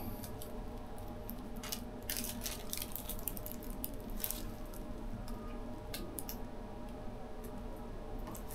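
Paper crinkling and rustling in short scattered bursts as a tattoo stencil sheet is pressed and smoothed onto skin with gloved hands, over a steady low hum.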